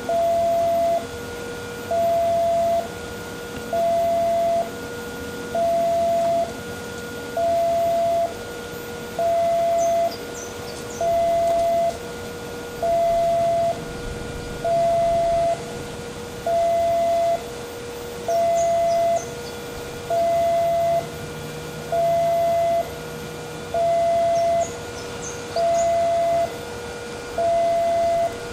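Railway level-crossing warning alarm sounding its steady two-tone signal, a higher tone and a lower tone alternating about once a second each, warning that a train is approaching.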